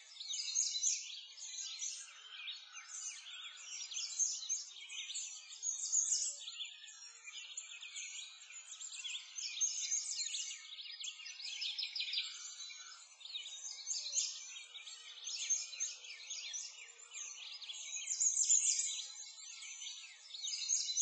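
A dense chorus of many small birds chirping and singing without pause in high, quick notes, swelling and easing every few seconds.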